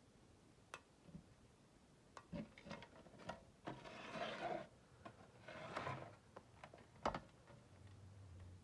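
Faint handling noises from a small framed solar panel being turned over and handled: scattered light clicks and taps, two short scraping rubs near the middle, and one sharper click about seven seconds in.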